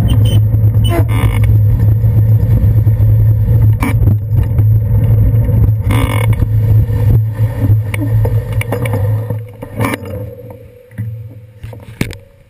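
Steady low wind-and-road rumble on a bicycle's handlebar-mounted camera while riding, with a few sharp knocks from bumps. It dies down over the last few seconds as the bike slows.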